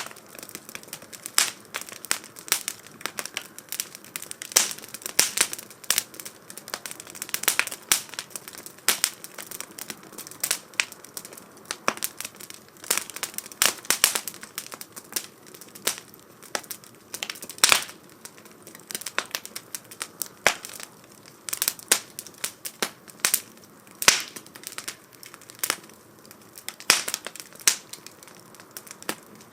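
Wood fire crackling in a 2×4 STOVE fire stand: irregular sharp pops and snaps, a few standing out louder than the rest.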